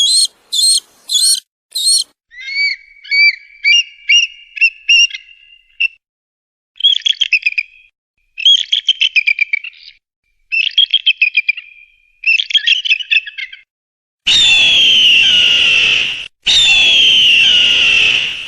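Eagle calls: bursts of quick, high piping and chattering notes, then two long screams that fall in pitch near the end.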